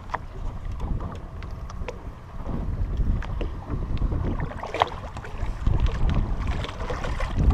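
Wind buffeting the microphone on an open boat, a low rumble that grows louder in the second half, with scattered small knocks and clatter on the boat.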